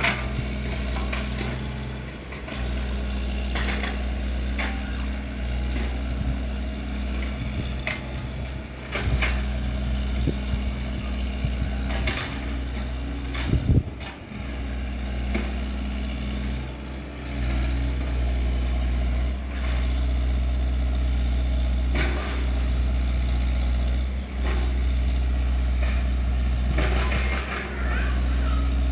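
Excavator's diesel engine running steadily, with scattered short clanks and knocks.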